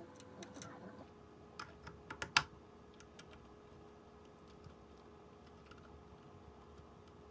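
Small clicks and taps of a hex key, screw and 3D-printed plastic part being handled against a 3D printer's metal frame: a quick cluster of sharp clicks about two seconds in, the last one the loudest, then faint scattered ticks over a faint steady hum.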